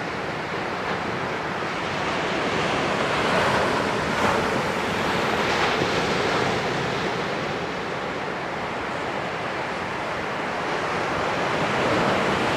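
Small waves breaking and washing up on a sandy beach: a steady rush of surf that swells a few seconds in and again near the end.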